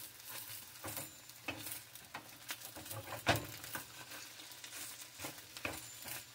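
Wooden spatula stirring and scraping egg and rice in a nonstick frying pan, in irregular strokes and taps against the pan over a light sizzle. The sharpest scrape comes about three seconds in.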